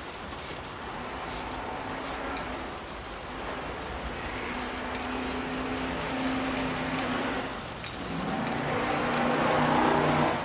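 An MTN 94 aerosol spray paint can hissing as paint is sprayed over a paper stencil, the hiss swelling twice and loudest near the end. Rain ticks steadily in the background, and a low steady hum comes in about four seconds in.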